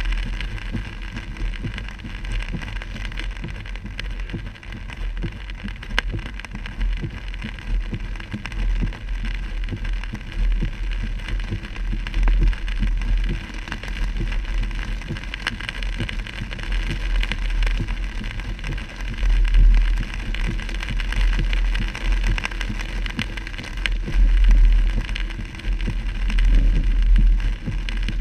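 Cabin noise of a car driving through heavy rain: tyres hissing on the wet road and rain ticking on the windshield over a low rumble that swells and fades several times.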